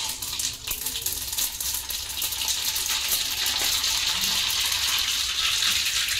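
Mustard seeds spluttering in hot oil for a tempering: a dense, steady crackle of many small pops.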